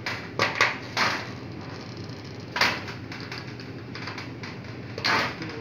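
Plastic fire-detector mounting base being handled and fitted against a ceiling: a handful of short clicks and scrapes, several near the start, one in the middle and one near the end.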